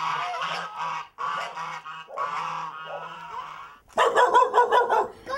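Honking animal calls, repeated in long bouts with short breaks, then a louder burst of rapid calls about four seconds in.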